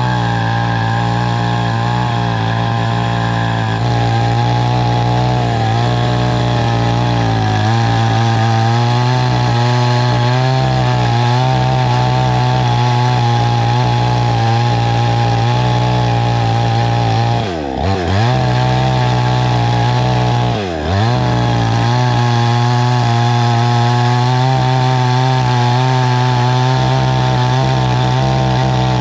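Small two-stroke chainsaw running at high revs while ripping lengthwise along a felled log to cut timbers. Twice in the second half the engine speed drops sharply and then picks straight back up.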